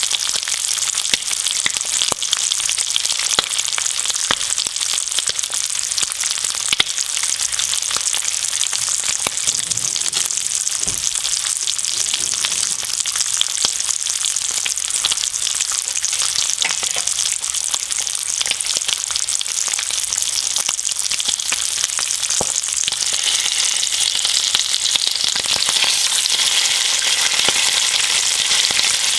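Bacon and eggs frying: a steady sizzle thick with small crackling pops, growing a little louder and brighter near the end.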